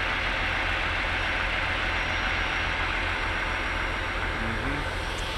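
Diesel semi-truck engines idling: a steady low rumble under an even hiss.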